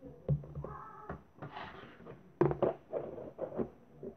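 Blue slime squeezed and kneaded by hand in a plastic bowl, making irregular pops and squelches.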